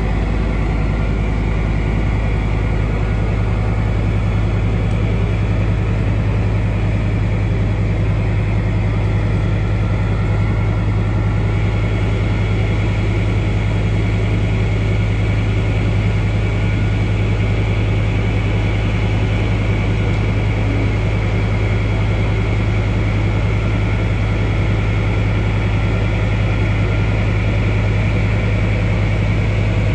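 Puma infantry fighting vehicle's MTU V10 diesel engine idling, a steady deep hum.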